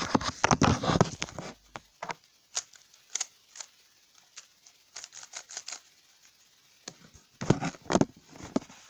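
Plastic speed cube being turned quickly by hand, its layers clicking and clacking. A fast flurry of turns comes in the first two seconds, then scattered clicks, then another quick run of turns near the end.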